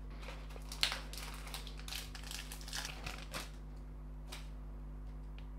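2023-24 Panini Donruss Optic basketball cards being handled and slid against one another: a run of soft rustles and clicks over the first three and a half seconds, one more about four seconds in, over a low steady hum.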